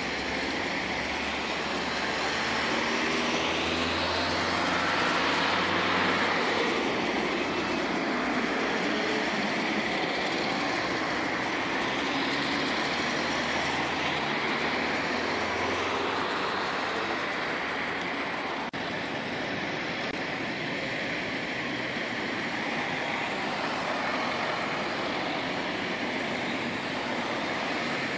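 Road traffic on nearby streets: cars passing, their engines swelling and fading twice over a steady hiss of tyre and road noise.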